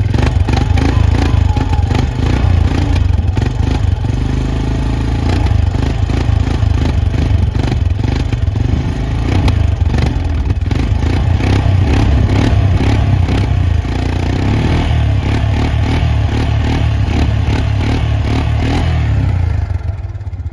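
2015 Arctic Cat 400 ATV's single-cylinder four-stroke engine running with a rapid clatter of valve train noise, its level rising and falling a little and dropping near the end. The noise is a sign of a worn top end that the owner says needs a rebuild.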